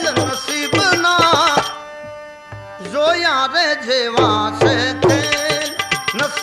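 Live bhajan music: tabla strokes under a sliding, ornamented melody line over steady held drone tones. Near two seconds in the melody and drums drop away for about a second, leaving only the held tones, then come back.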